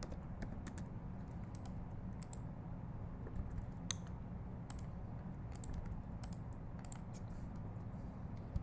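Irregular keystrokes and clicks on a computer keyboard, scattered sharp taps, over a steady low hum.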